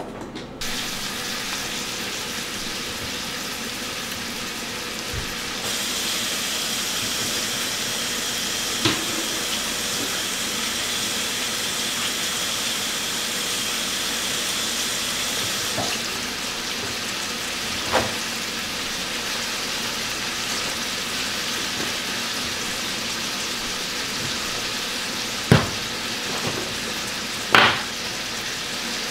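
Cubed raw chicken sizzling in melting butter in a nonstick frying pan: a steady frying hiss, louder for a stretch in the middle, with a few short sharp knocks.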